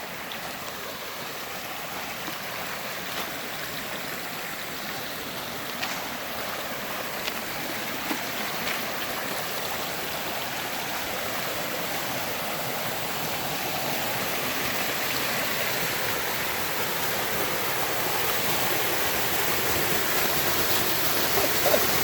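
Small mountain-creek waterfall rushing steadily, the sound growing gradually louder, with a few light knocks in the first half.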